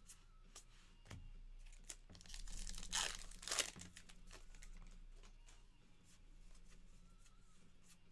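Baseball card pack wrapper being torn open by hand: a rustling, crinkling tear a little over two seconds in that lasts about a second and a half and peaks twice. Light clicks of cards being handled are heard around it.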